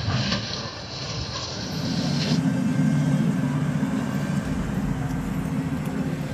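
Freight train of double-stack intermodal container cars rolling through a level crossing with a steady low rumble. A high hiss runs for about the first two seconds, then cuts off.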